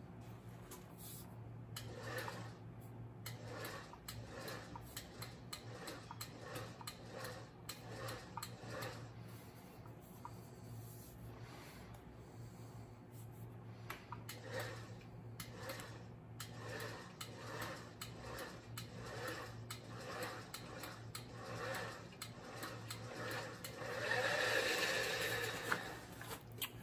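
Hand-cranked Magnum RR12 bead roller turning a sheet-metal panel between a tipping die and a urethane skateboard wheel, giving faint rhythmic creaks and rubbing about once a second. A louder stretch of rubbing comes near the end.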